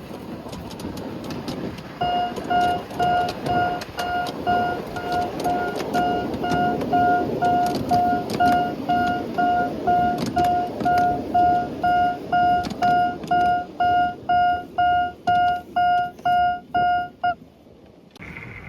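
Electronic level-crossing warning bell of a miniature railway, ringing one repeated tone in an even rhythm of a little over one and a half strikes a second, then cutting off suddenly near the end. A low rumble runs underneath.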